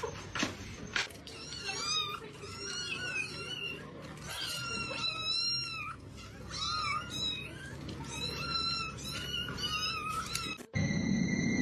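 Cats meowing over and over in short, high-pitched calls. Near the end the sound cuts to a steady high tone.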